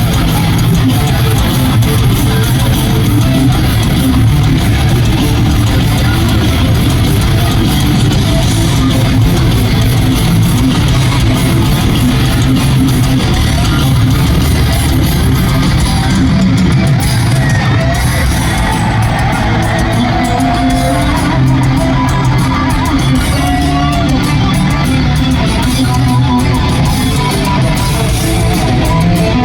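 Thrash metal band playing live, with distorted electric guitars, bass guitar and drums and no vocals. In the second half a single-note lead guitar line with bends rises above the rhythm.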